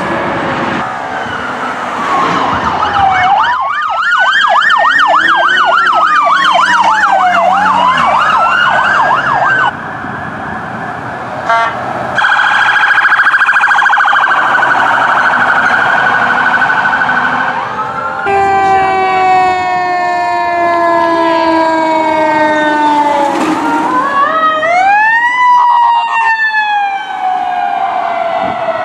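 Emergency vehicle sirens heard one after another: a slow wail and a fast yelp sounding together, then a steady, rapidly warbling high siren, then a deeper siren with many overtones that slowly winds down, sweeps quickly back up near the end and falls away again.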